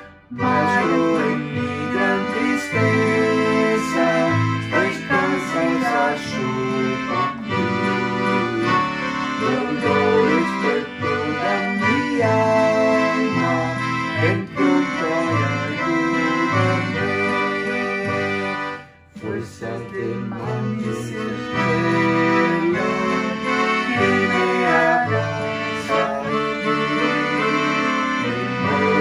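Hymn music with a sustained, accordion-like keyboard accompaniment; the music breaks off briefly about two-thirds of the way through.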